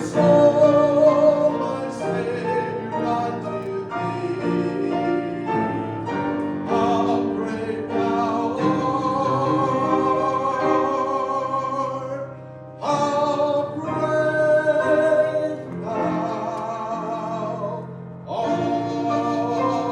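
Gospel singing with a wavering vibrato on held notes, over instrumental accompaniment, with two brief pauses in the second half.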